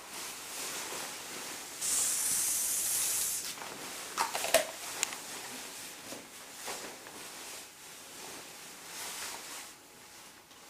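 Aerosol spray can sprayed in one hissing burst of about a second and a half, starting about two seconds in. A few clicks and knocks follow as it is handled.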